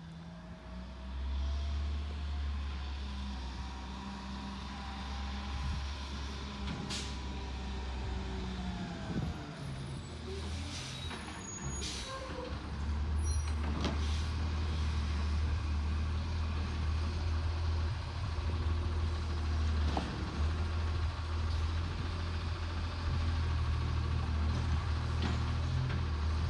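Garbage truck's diesel engine running as it drives up and stops, its low hum getting louder about halfway through, with short air-brake hisses near the middle.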